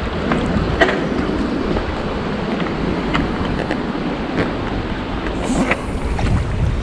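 Fast-flowing river water rushing steadily, with several small clicks and knocks scattered through it.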